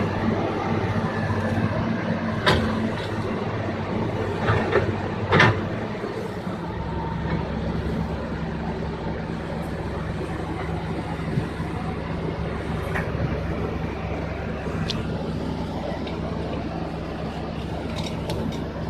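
Heavy machinery engine running steadily, its low note changing about seven seconds in, with a few sharp knocks in the first six seconds.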